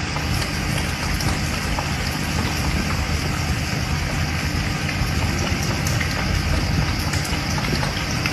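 Aquarium water circulation running: a steady, even rush of splashing water.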